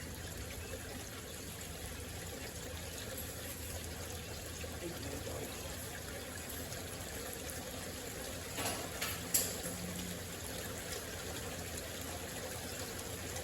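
Steady rain falling, an even hiss, with two brief sharp clicks about nine seconds in.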